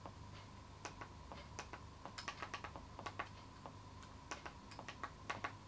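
Quiet, irregular clicks, often two or three in quick succession, from stepping through a TV settings menu with the remote control. A faint steady hum runs underneath.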